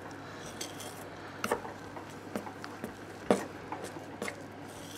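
Metal palette knife stirring soft scone dough in a glass mixing bowl, knocking and clinking against the glass in irregular taps, the loudest about three seconds in. The milk is being worked into the rubbed-in flour to bring the dough together.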